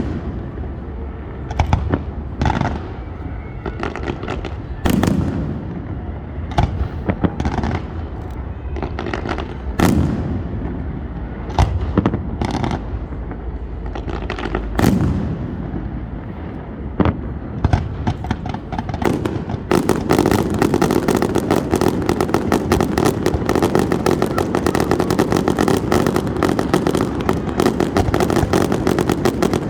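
Fireworks going off: scattered booming bursts every second or two. About two-thirds of the way in they give way to a dense, continuous rapid crackling of many small pops.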